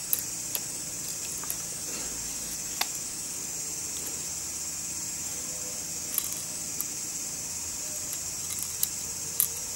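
A few faint, scattered clicks as flex-cable connectors are pressed by thumb onto a smartphone's charging sub-board, over a steady high hiss.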